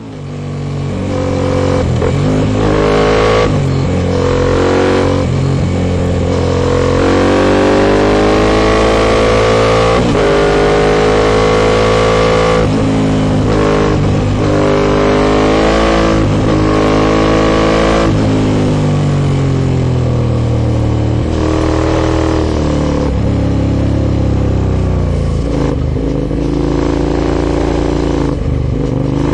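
Aprilia Shiver 750's 90-degree V-twin running through a full Arrow Dark Thunder aluminium exhaust under way, revs climbing and dropping repeatedly as the bike accelerates, shifts and backs off. The rider admits to holding a gear higher than ideal throughout.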